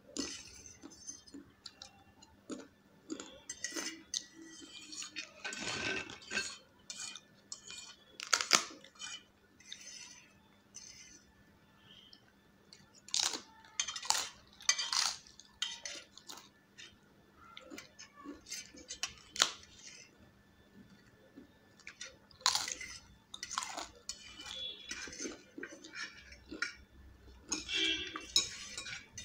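Steel forks clinking and scraping on stainless steel plates, mixed with close crunching and chewing of crisp fried papad, in irregular clicks and crackles.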